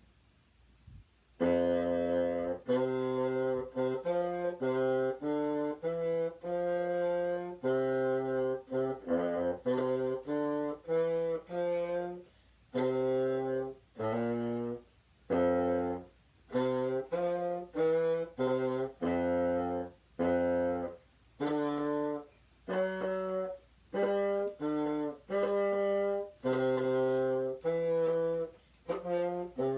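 Solo bassoon playing a tune of separate low notes, each with a short break before the next. It starts about a second and a half in.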